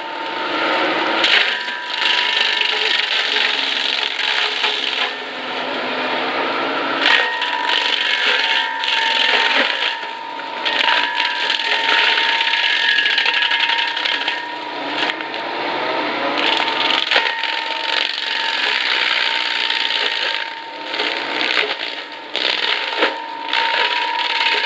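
Brush Hound Defender excavator forestry mulcher head shredding brush and small pine trees: the spinning rotor drum runs with a steady high whine while wood cracks and splinters against its teeth again and again.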